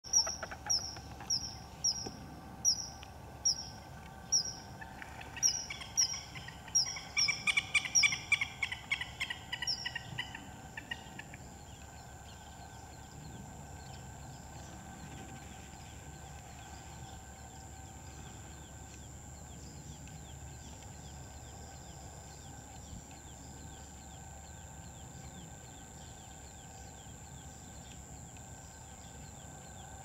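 Common kingfisher giving a string of short, shrill, slightly falling whistles, about three every two seconds, over the first ten seconds, with a lower run of notes overlapping from about five to eleven seconds. The calling then stops, leaving a steady faint high whine and background hiss.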